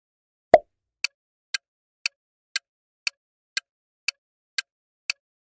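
Countdown-timer sound effect: a single sharp hit about half a second in, then a steady clock-like ticking, two ticks a second.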